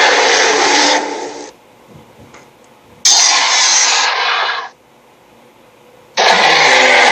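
Film sound effect of a tyrannosaur roaring: three loud, harsh roars, the first ending about a second and a half in, the second lasting from about 3 to nearly 5 seconds, the third starting about 6 seconds in.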